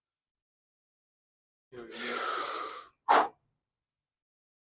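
A person sneezing: a drawn-out breathy build-up of about a second, then one short, sharp, loud burst.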